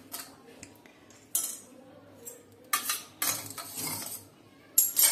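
A metal spoon clinking and scraping against metal cookware in several short bouts, the loudest near the end.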